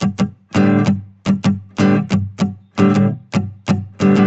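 Music: a guitar played in short, choppy strums, a few clipped strokes then a longer ringing chord, repeating in a quick uneven rhythm.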